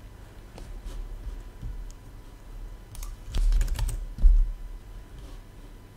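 Typing on a computer keyboard: scattered keystrokes and clicks, with a quicker run of keys about three to four seconds in and a heavier thud just after.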